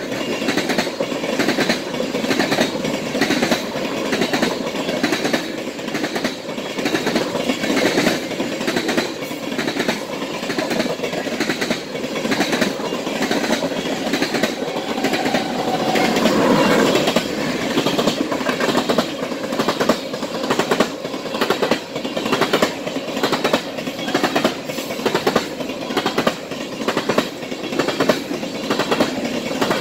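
Railroad tank cars of a long freight train rolling past close by, their wheels clacking rhythmically over rail joints over a steady rumble. A short squeal comes about halfway through.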